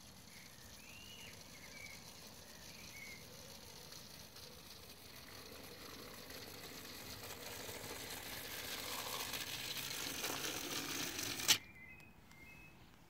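Clockwork Hornby Thomas tank engine running along OO-gauge track with its wind-up mechanism whirring, growing steadily louder as it comes closer, then a single sharp knock near the end as it runs into the buffer stop and the running sound cuts off.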